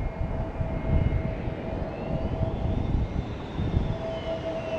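Airliner engines running: a dense low rumble with a steady whine and high whistling tones that slide up and then down.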